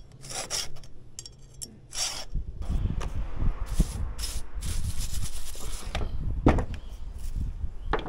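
A file rasping across the cutters of a Stihl 021 chainsaw's chain during hand sharpening: a series of short strokes at irregular intervals, with low knocks of handling underneath.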